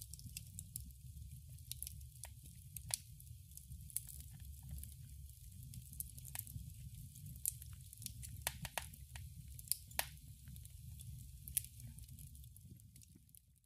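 A wood campfire crackling, with irregular sharp pops and snaps over a low steady rumble, fading out near the end.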